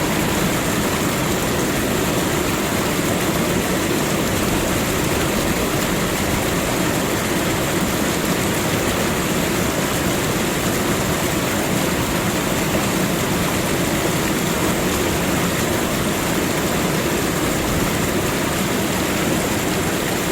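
Waterfall: water pouring over the falls in a loud, steady, even rush.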